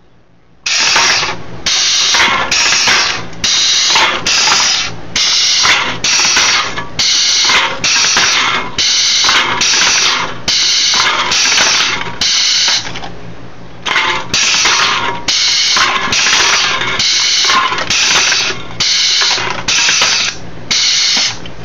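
Homemade pneumatic can crusher cycling fast: an air cylinder worked by a hand valve crushes aluminium soda cans fed down a gravity chute, each stroke a sudden hissing burst with the crunch of a can. About one and a half strokes a second, with a short pause a little past halfway.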